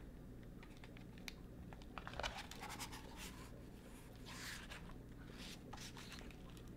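Faint rustling and soft clicks of a hardcover picture book's paper pages being turned, with a cluster of small clicks in the first few seconds and a soft swish of a page a little after the middle.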